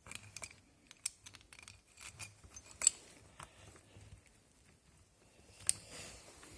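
Light, scattered clicks and taps of small chainsaw parts and tools being handled as the carburetor holder and carburetor are fitted back during reassembly, the sharpest click about three seconds in and another near the end.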